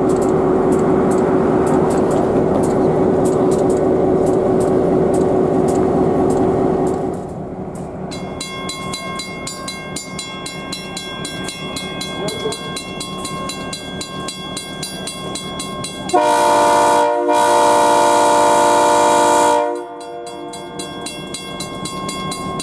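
An EMD GP-series diesel locomotive passes close by, its engine running loudly. After that a grade-crossing bell rings steadily while the locomotive stands near the crossing. About 16 seconds in, NBER GP10 #1804's air horn sounds a short blast and then a longer one, about three seconds in all.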